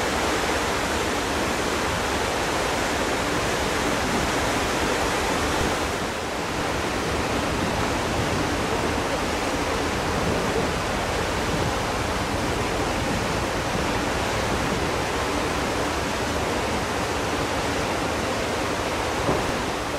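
Steady rushing of wind and sea water around a ferry under way, an even hiss with no clear pitch. There is a single small knock just before the end.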